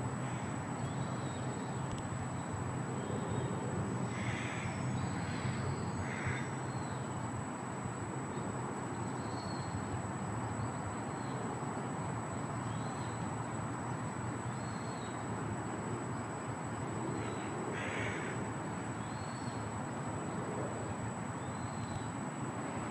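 Outdoor park ambience: a steady low hum of distant traffic, with a bird giving short harsh calls twice in quick succession and once more later on. Small birds chirp faintly in between.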